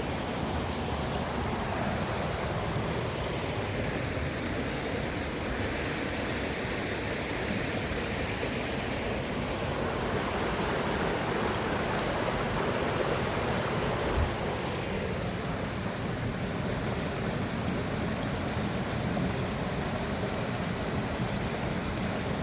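Mountain stream water rushing over rocks, a steady even noise. A single brief low knock about 14 seconds in.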